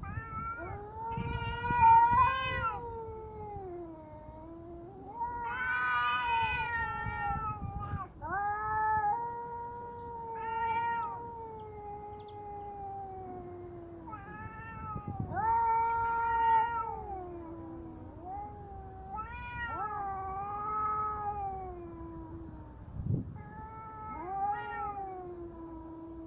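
Two domestic cats caterwauling at each other in a fight standoff. Long, drawn-out, wavering yowls rise and fall one after another almost without a break, and the two voices overlap at times.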